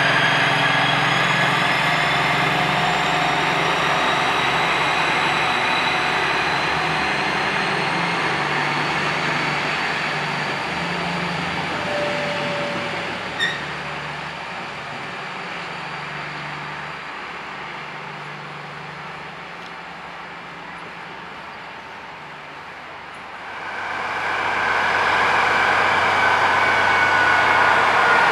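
DB Class 218 diesel-hydraulic locomotive's V12 diesel running under load as it hauls double-deck coaches away, the engine and the rolling of the coach wheels fading steadily, with a single short click about 13 seconds in. From about 23 seconds the 218's engine is heard close again, louder, with a steady high whine over its hum.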